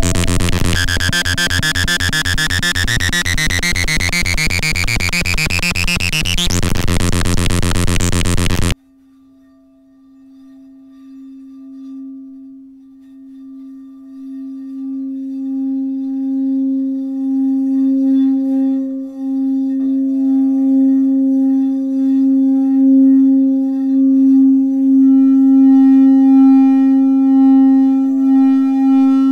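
Electronic experimental soundtrack. A loud, dense synthesized buzz with a tone sweeping upward cuts off abruptly about nine seconds in. Then a steady low sine-like tone fades in from quiet, and higher steady tones join it and slowly swell.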